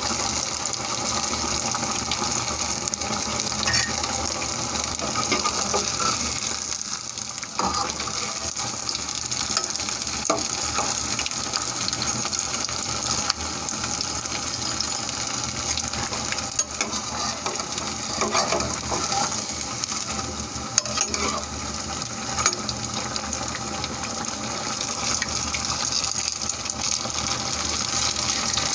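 Buttermilk-batter pua (sweet fritters) deep-frying in hot oil in a kadhai: a steady sizzle and crackle, with a few light clicks now and then.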